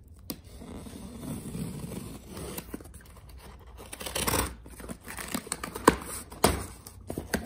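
A box cutter slicing and scraping through the tape and cardboard of a shipping box, with tearing cardboard. A longer tearing stretch comes about four seconds in, and a few sharp knocks follow near the end as the flaps are handled.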